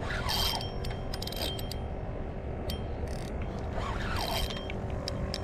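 Penn Pursuit III 4000 spinning reel working under the load of a large hooked fish: irregular mechanical clicking and whirring from the reel's gears and drag.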